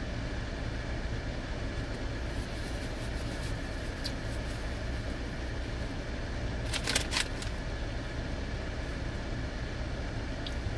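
Steady low hum and hiss of a car's cabin with the vehicle idling, and a brief crinkling of a plastic carry-out bag about seven seconds in.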